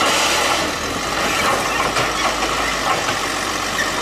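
Diesel engine of an automated side-loader garbage truck running steadily while its mechanical arm tips a wheeled cart into the hopper and sets it back down.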